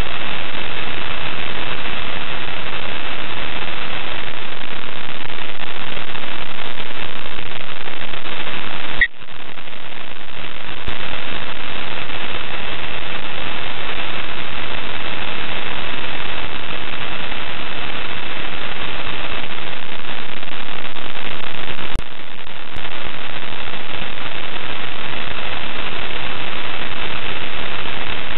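Loud, steady radio static hiss with a thin high whine through it, from the open audio channel of the International Space Station live feed. It cuts out briefly with a click about nine seconds in, and again about two-thirds of the way through.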